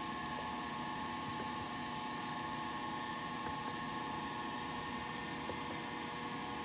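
Steady hum and hiss with a constant faint whine made of several even tones, like a running fan or electrical equipment, and a few faint ticks.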